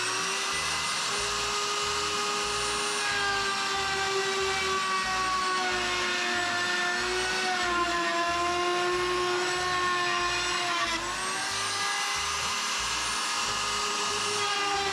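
Handheld plunge router running at full speed while cutting a 3/8-inch groove in a sheathing panel. It makes a steady high whine that dips briefly in pitch about three quarters of the way through as the bit takes load.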